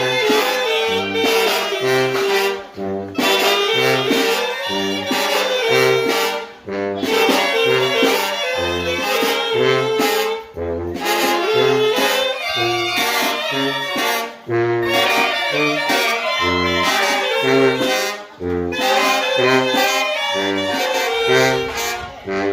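Mexican banda of wind instruments playing: saxophones, trumpets and trombones over a bouncing low brass bass line, the phrases broken by short pauses about every four seconds.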